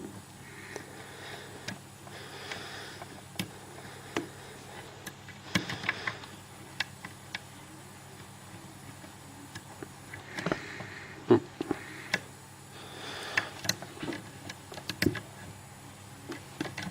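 Small irregular metal ticks and scrapes of a hook pick and tension wrench working the pins inside an old Lockwood deadlock, with no distinct pin-setting click: the lock is giving the picker no feedback.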